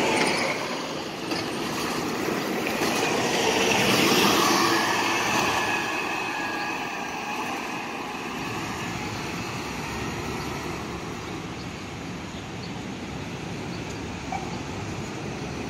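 City buses driving off, engines running with a faint whine that slowly falls, over steady traffic noise; it is loudest about four seconds in.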